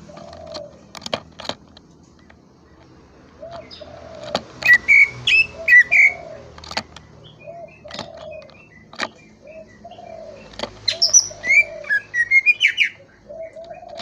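Cucak ijo (green leafbird) singing: two bursts of quick high whistled phrases, about five seconds in and again near eleven seconds, over a short low note repeated about once a second, with sharp clicks scattered throughout.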